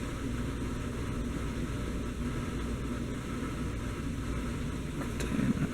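1984 Casablanca Delta ceiling fan running steadily on medium speed, a low motor hum with the rush of moving air. About five seconds in there is a short click and a brief low thump.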